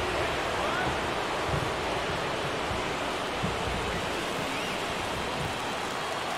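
Steady crowd noise of a baseball stadium between pitches, an even hubbub with a few faint shouts rising over it.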